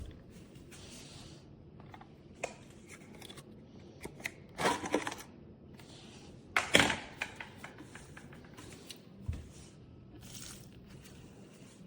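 Plastic clicks and knocks from handling a cordless wet-dry vacuum's dirty-water tank while it is taken off and emptied, with two short, louder scraping bursts about five and seven seconds in.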